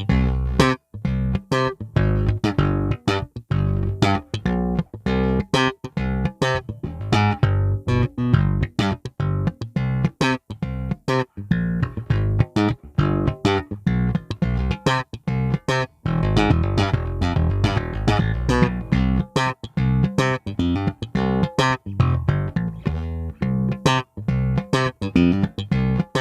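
Fender Player Series Precision Bass played through a Marshall MB60 bass amp: a busy line of short plucked notes, with a stretch of longer ringing notes around the middle.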